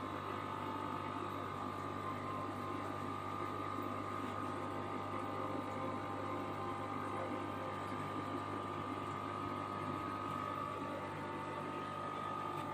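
Steady hum of aquarium equipment: air pumps driving sponge filters, with water bubbling. The hum and a few faint tones hold constant throughout.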